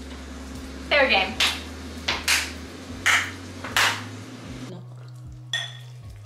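Several sharp knocks and clinks of metal table knives and a shot glass on a stone kitchen countertop, spaced unevenly about a second apart, over background music with sustained low notes. A short vocal cry comes about a second in.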